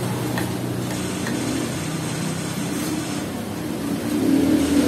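Steady low hum of vehicle engines running in passing street traffic, with a few faint clicks of cutlery on plastic plates.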